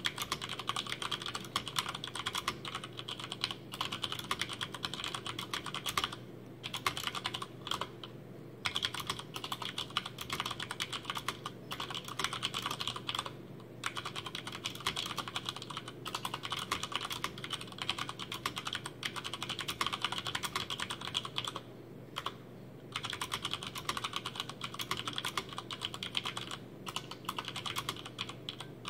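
Continuous typing on a Hansung GO187 VIKI mechanical keyboard with Cherry MX Brown switches, stock with no lubrication or sound dampening: a rapid stream of keystrokes broken by a few brief pauses.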